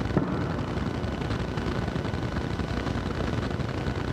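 Steady low rumbling background noise, with a brief soft knock just after the start.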